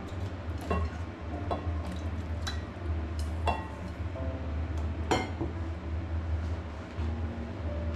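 Dishes and utensils clinking against each other in the kitchen: about five separate ringing clinks, the loudest near the end, over a steady low hum.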